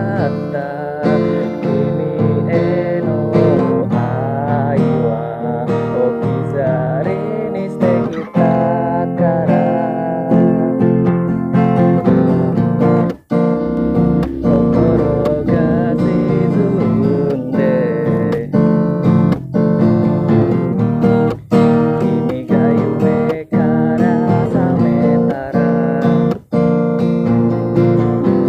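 Acoustic guitar music: strummed chords with a melody line over them.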